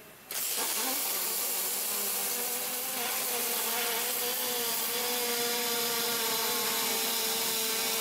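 MIG welding arc striking about a third of a second in, then burning with a steady hissing buzz and a steady hum underneath.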